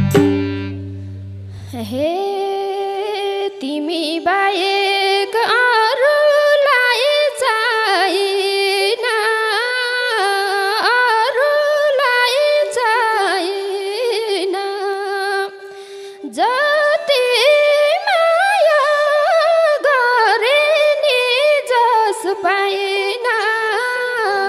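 Slow, free-flowing Nepali folk (dohori) singing: one voice drawing out a bending, ornamented melody over a steady held drone note, with the drums and bass silent. A low note from the band dies away in the first two seconds, and the voice breaks off briefly about two-thirds through before starting the next phrase with an upward slide.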